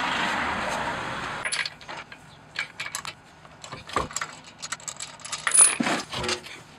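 Lug nuts being spun off a 2012 Mazda 3's alloy wheel by hand: a run of short metallic clicks and clinks, with a louder clatter about five and a half seconds in as the wheel is pulled from the hub. A hissing rush of noise fades over the first second and a half.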